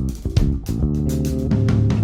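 Instrumental music: guitar and bass guitar playing with a few sharp percussion hits.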